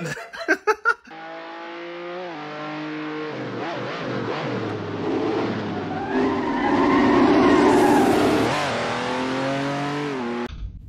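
Racing car engine running hard, its pitch climbing and dropping back again and again as it shifts through the gears, loudest between about six and eight and a half seconds in, then cutting off suddenly.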